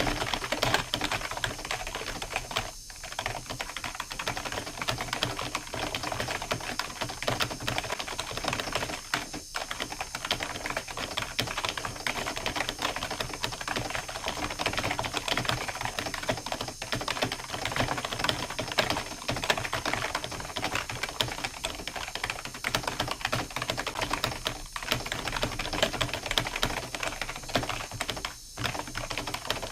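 Computer keyboard being typed on fast and continuously, a dense run of keystroke clicks broken by a few brief pauses.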